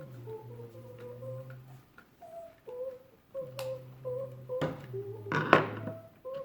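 Electronic tune of simple stepped notes from a small toy speaker, with a low hum and scattered ticking, typical of a Christmas walking penguin toy running its music and walking mechanism. A brief loud rattle about five seconds in.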